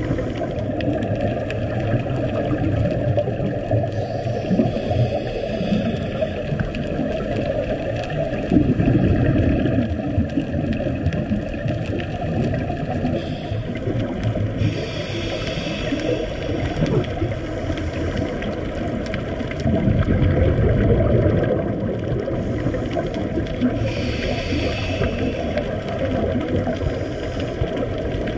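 A scuba diver breathing through a regulator, heard underwater: three hissing inhales about ten seconds apart, with a low bubbling of exhaled air between them.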